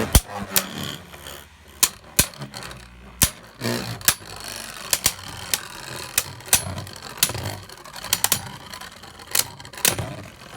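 Two Beyblade Burst QuadStrike tops battling in a plastic stadium. The tops clash with each other and the stadium in sharp, irregular clacks, over a faint scraping of their spinning tips on the floor.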